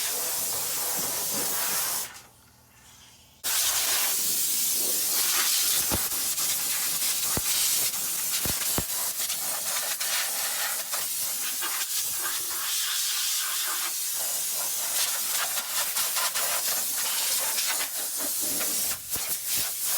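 Compressed air hissing steadily from an air nozzle while sanding dust is blown off a car body. The air cuts out for about a second and a half about two seconds in, then resumes, with a few sharp clicks along the way.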